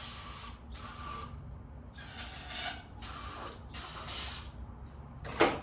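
Aerosol can of carb cleaner hissing in five short sprays, squirted into the motorcycle's intake to help a no-start engine fire. A single sharp click follows near the end.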